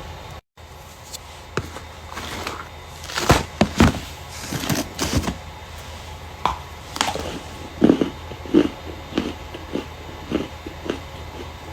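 Starch being crushed: a string of irregular crunches and crackles, loudest a little after three seconds in and again around eight seconds.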